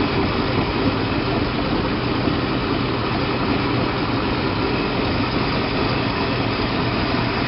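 MerCruiser 5.0L carbureted V8 marine engine idling steadily.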